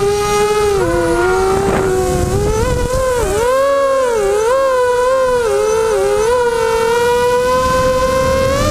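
Electric motors and propellers of a small camera drone in flight, a steady whine whose pitch dips about a second in, wavers up and down in the middle as the throttle changes, then climbs slowly near the end, over low wind rumble on the microphone.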